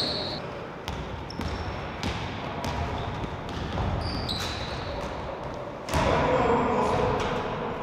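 Basketball being dribbled and bounced on a hardwood-style gym court during a pickup game, with scattered short thuds and brief high sneaker squeaks. Players' voices call out about six seconds in.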